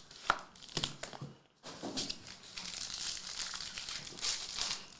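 Plastic wrapping crinkling and tearing as a trading card box and pack are opened by hand: a few sharp crackles, then steady crinkling rustle.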